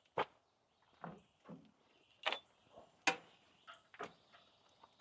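About eight light clicks and taps, scattered irregularly, from hand work on a sawmill throttle cable fitting as slack is worked into the cable.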